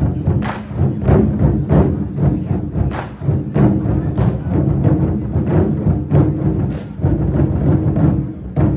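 24 Festive Drums ensemble playing: many large Chinese drums struck together in a fast, driving rhythm, with sharper accents cutting through a steady low boom.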